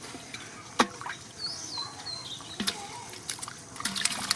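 Muddy water trickling and splashing as fish and a fishing net are lifted out of shallow water by hand, with scattered sharp slaps and clicks, the loudest a single knock a little under a second in and a quick run of them near the end.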